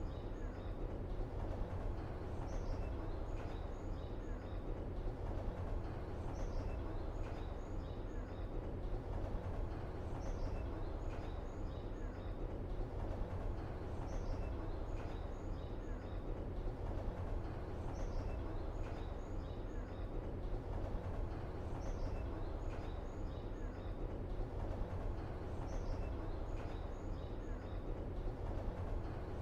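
Steady low rumble with faint high chirps at the top, the same pattern of chirps recurring about every four seconds: a looped background ambience.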